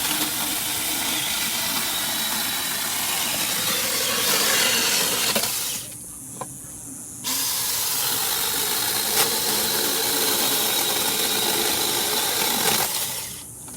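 Cordless electric mini chainsaw running in two long runs, with its motor and chain giving a steady hissing whir. It stops for about a second and a half around six seconds in, and winds down near the end.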